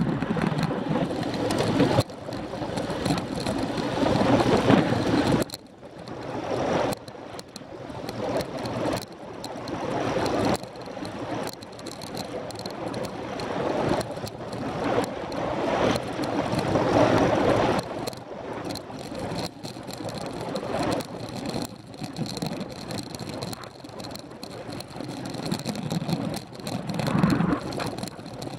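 Wind rushing over the microphone of a camera on a bicycle riding at about 20 mph, swelling and dropping unevenly every second or two.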